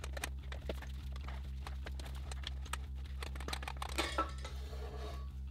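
Quiet background music with a steady pulsing bass, over faint scattered clicks and a light metallic clink about four seconds in from drill press parts being handled.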